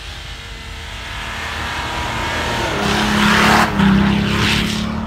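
4x4 SUV engine revving hard as it ploughs through deep snow, growing louder and held high about three seconds in. The spinning wheels throw snow with a loud rushing hiss.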